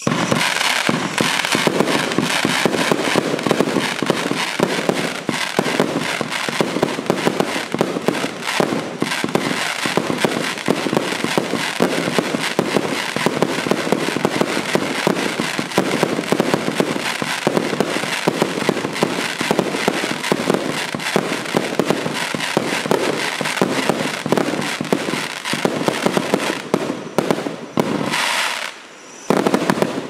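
Magictime P7663 Indian Ocean, a 100-shot 1.2-inch fireworks cake, firing in rapid succession: a continuous barrage of launches and bursting shells. It eases off briefly a couple of seconds before the end, then fires its last shots.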